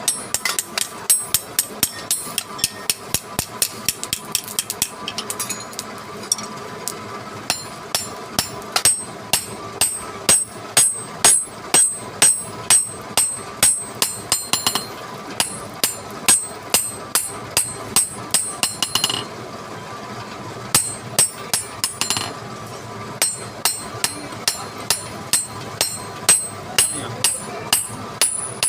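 A hammer striking metal in quick repeated blows, about two to three a second, each with a sharp ringing clang, pausing briefly twice.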